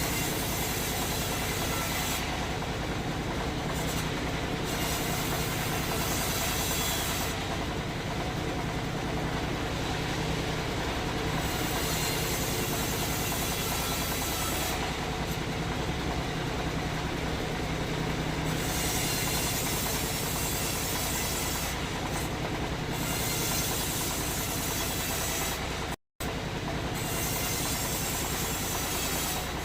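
Sawmill machinery running steadily under a low hum, with a higher hiss that comes and goes in stretches of a few seconds; the sound breaks off for an instant near the end.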